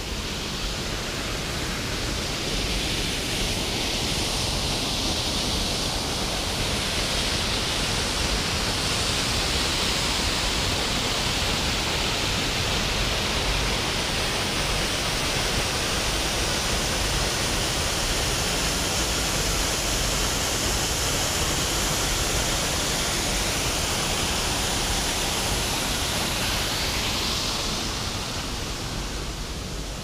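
A waterfall with little water in it gives a steady rush of falling water. The sound swells over the first few seconds and fades again near the end.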